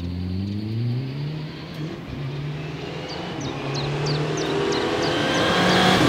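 Mitsubishi Lancer Evolution rally cars' turbocharged four-cylinder engines at full throttle: one accelerates away with its revs climbing and dropping through upshifts, then a second car approaches, growing steadily louder toward the end.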